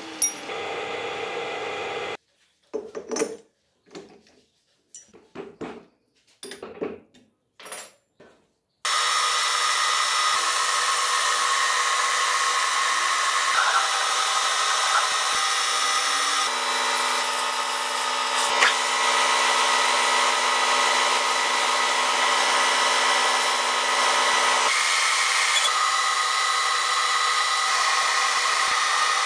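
Metal lathe running steadily while a drill bit in the tailstock chuck bores into the end of a spinning steel axle stub: a loud, even machine whine made of several fixed tones, with a lower hum joining in for several seconds in the middle. It starts about nine seconds in, after a few short, scattered clatters of metal parts being handled, with silence between them.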